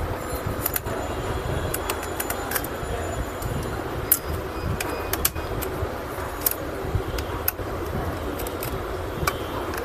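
Scattered small clicks and taps of tools and parts being handled while a Lenovo G570 laptop is taken apart, irregular and a dozen or so, over a steady background noise.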